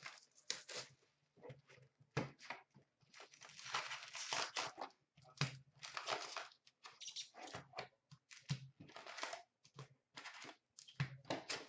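Plastic shrink-wrap being torn off a cardboard hobby box of hockey cards, then the box flap opened and the foil packs handled: a faint, irregular run of crinkling and tearing rustles.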